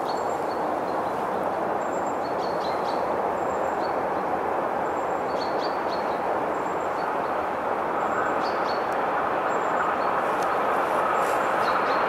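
Approaching VR Sr1 electric locomotive and its InterCity train: a steady rumble of the train on the rails that slowly grows louder, with a faint whine joining about eight seconds in. Birds chirp briefly every second or two.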